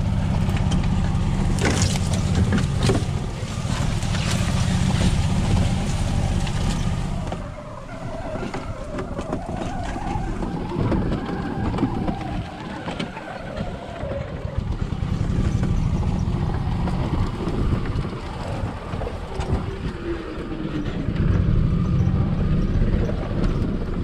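Golf cart driving over a bumpy, overgrown trail: a steady low running of the cart with knocks and jolts from the rough ground. The running eases off about eight seconds in and picks up again later.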